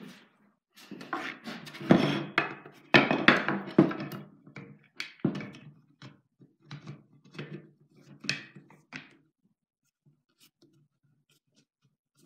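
Wooden ax handles knocking and thunking against a workbench as they are picked up and handled, loudest in a cluster of knocks about two to four seconds in, then lighter taps that stop after about nine seconds.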